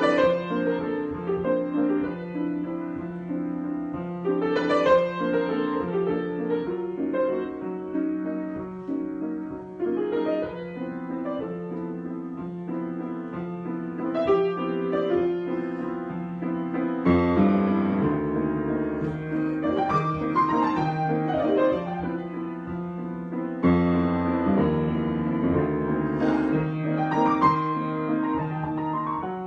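Solo piano improvisation: chords and melody over a held low note, with deeper bass notes coming in about halfway through and again later.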